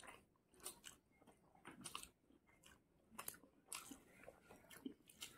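Faint eating sounds of Maggi instant noodles eaten by hand: scattered short chewing and mouth clicks, a dozen or so, spaced unevenly.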